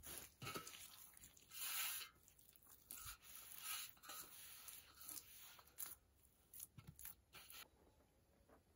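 Hands kneading and pressing soft, wet bazlama bread dough in a steel bowl: faint, irregular handling noises, the loudest about two seconds in, fading out after about six seconds.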